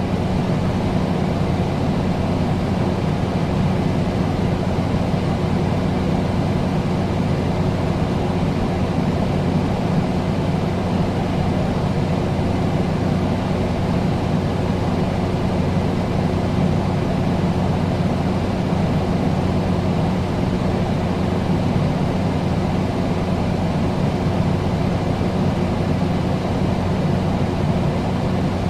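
Air conditioner running steadily: an even rush of fan and air noise with a constant low hum under it.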